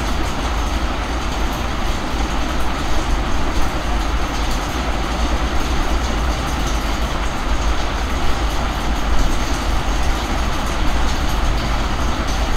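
Steady background noise: a deep rumble with a hiss over it, unbroken and unchanging.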